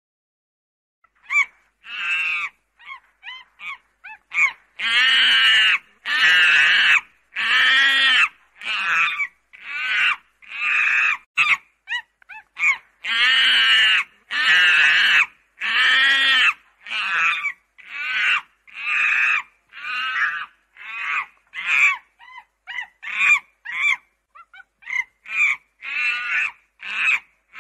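Primate calling: a long series of loud, high-pitched calls, some short and clipped, others held for about a second, following one another with brief gaps and starting about a second in.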